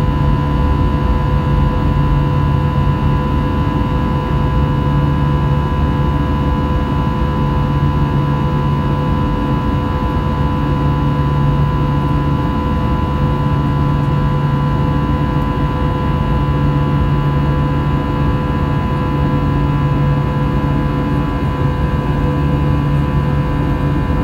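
Airbus A320-200's CFM56-5B turbofan engines and rushing air heard from inside the cabin in flight: a steady rumble with a constant hum.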